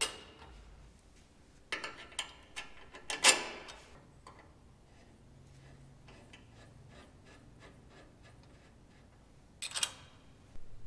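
Hand ratchet clicking as bolts on the rear anti-roll bar end links are tightened: a run of light, even ticks in the middle, with sharper metal clanks of the wrench near the start and near the end.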